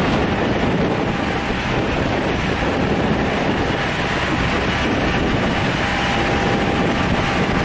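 Steady wind noise buffeting the microphone, a loud, even rumble with no distinct engine note.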